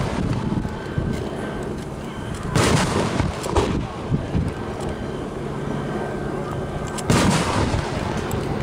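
Aerial firework shells going off with loud booms, each trailing off in a rolling echo: one about two and a half seconds in, another a second later, and a third about seven seconds in.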